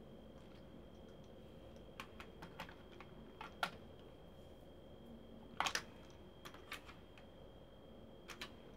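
Hard plastic toy parts clicking and knocking as the red cab of a vintage Transformers Powermaster Optimus Prime is handled and set onto its trailer base: a scattered run of sharp clicks, the loudest cluster about halfway through.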